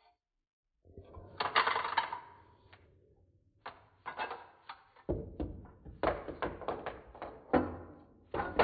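A crimper working an object through it, giving irregular clicks and crackling that grow denser and heavier about halfway through, after a near-silent first second.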